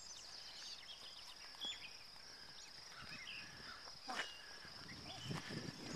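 Field ambience: a steady high drone of insects, with scattered short bird chirps over it. Low rustling footsteps in grass come in near the end.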